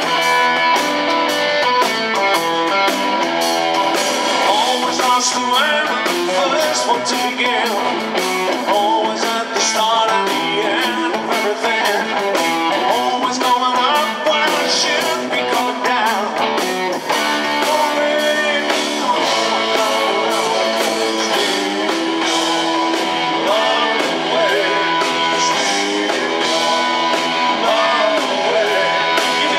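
Live blues-rock band playing: a Telecaster-style electric guitar plays lead lines with bent notes over bass guitar and drums.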